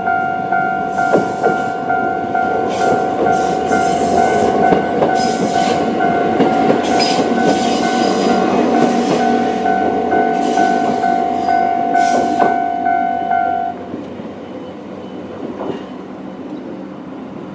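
Japanese level-crossing warning bell ringing in a steady repeating rhythm while a Choshi Electric Railway 2000-series train rolls through, its wheels clattering over the rail joints. The train noise fades after about twelve seconds, and the bell cuts off about fourteen seconds in as the crossing clears.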